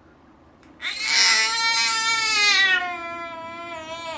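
A baby's long, high-pitched squeal that starts about a second in, slides slowly down in pitch and wavers near the end.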